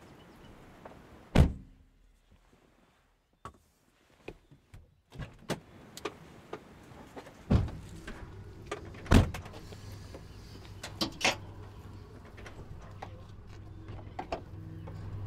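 A car door shuts with a loud thunk about a second in, followed by quiet and a few scattered clicks. Later a car bonnet is opened, with two clunks as it is unlatched and raised, over a low steady hum.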